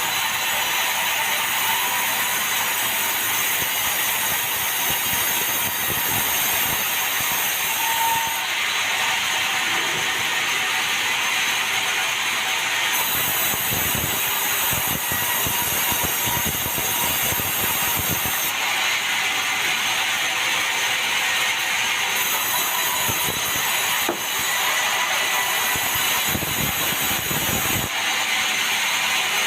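Sawmill saw running and cutting meranti timber: a loud, steady, hissing rasp whose tone shifts every few seconds, with heavier low rumbling in a couple of stretches.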